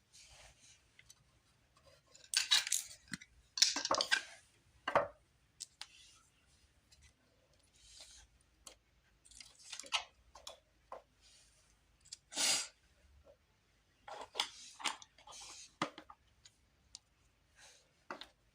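Plastic toy dining-set pieces and their packaging being handled: scattered light clicks and clinks, with a few short rustling bursts.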